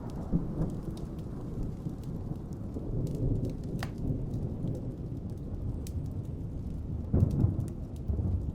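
Rain falling with a low, continuous rumble of thunder and scattered raindrop ticks; the rumble swells louder about seven seconds in.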